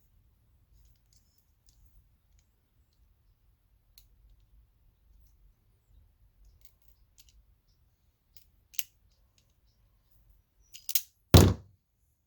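Faint scattered clicks of hand-working small wire connectors and tools, then a sharp click about nine seconds in, two quick clicks and a loud thunk near the end as a tool closes or is set down.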